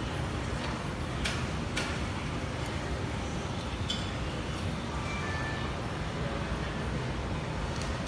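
Steady background hum of a busy public place with faint distant voices, and two sharp clicks about a second in.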